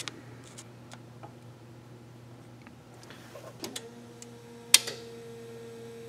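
Glow plug solenoid on a 7.3L Powerstroke diesel clicking in once, sharply, as the key is switched on, showing the solenoid is working. A steady hum starts just before the click, and a few faint ticks come earlier.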